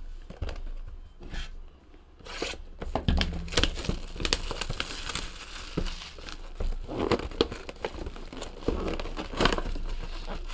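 Plastic shrink-wrap crinkling and tearing as a sealed trading-card box is unwrapped, followed by the cardboard box being opened and its foil-wrapped card packs handled. A quick, irregular run of crackles and small clicks.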